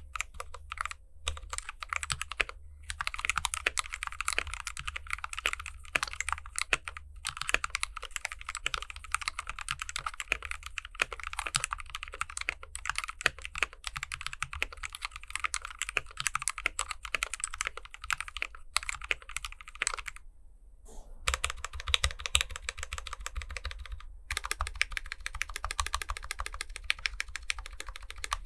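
Typing on a Gamakay K77 mechanical keyboard with lubed switches and Holee-modded stabilizers: a fast, continuous clatter of keystrokes, broken by short pauses a little after two seconds in and twice near the twenty-second mark.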